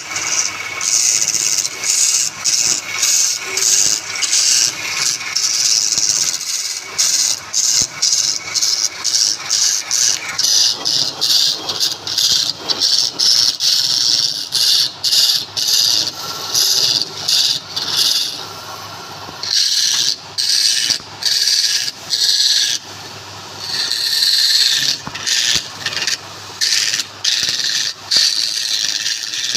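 Wood being worked on a spinning lathe: a rasping, hissing scrape in many short strokes with brief gaps between them, over the faint steady hum of the machine.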